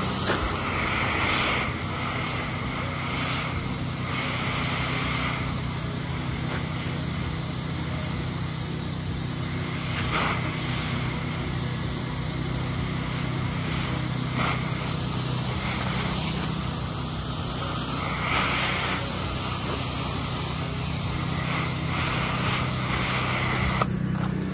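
Engine-driven pressure washer running steadily, with the hiss of the water spray coming and going as the surface is rinsed.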